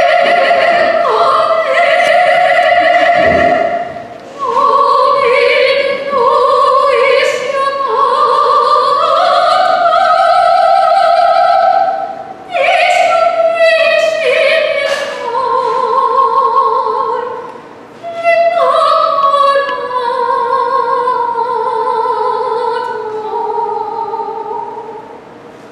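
A woman singing in an operatic style, holding long notes in phrases of several seconds with short breaks between them.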